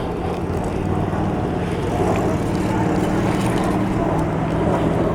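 Steady hum of a motor vehicle's engine with road noise, holding an even pitch.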